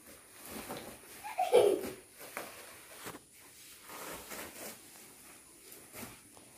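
Light rustling and scraping of a plastic woven floor mat being handled and dragged across a hard floor. A short voice-like sound comes about one and a half seconds in.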